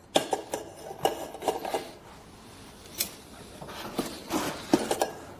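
A cooking pot and its pot-gripper clip being handled and set down in a hard plastic camp-kitchen organizer tray: scattered light clinks and knocks with some rubbing, the sharpest knock about three seconds in.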